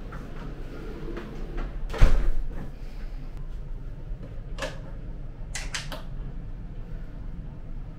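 A wooden door shutting with a thud, then a few light metal clicks as a brass hook-and-eye latch is swung across and dropped into its eye to lock the door.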